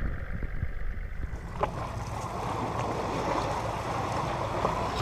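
Sea water rushing and splashing beside a boat over a low, steady rumble of wind and the boat. The rushing comes in about one and a half seconds in and holds steady.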